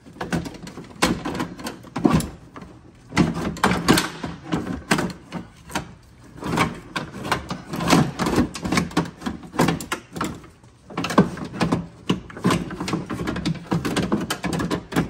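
Ford Expedition front-door window regulator, a metal track-and-cable assembly, clattering and knocking against the door's inner sheet metal as it is worked out through the door opening, in many quick rattles and knocks.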